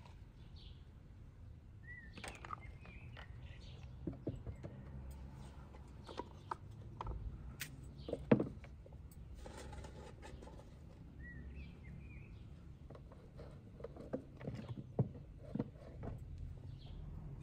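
Soft clicks and knocks of cut vegetables being packed by hand into a large plastic jar, with one sharper knock about eight seconds in. Under it is a low outdoor rumble with a few short bird chirps.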